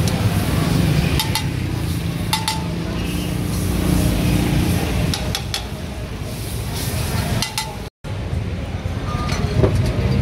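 Fat sizzling on a cast-iron sizzling plate over a gas burner, with a metal spatula clinking against the plate every second or two. A steady low street-traffic rumble runs underneath. The sound breaks off briefly near the end.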